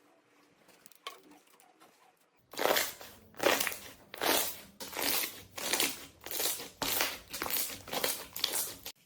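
Slime being pressed and squeezed by hand: a run of about eleven loud squishing presses, a little under two a second, starting about two and a half seconds in.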